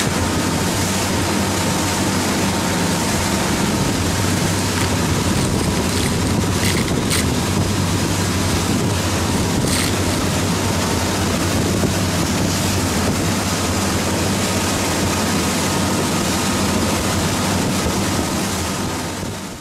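Speedboat with outboard motors running at speed, a steady engine drone under the rush of churning wake water and wind buffeting the microphone. The sound fades out at the very end.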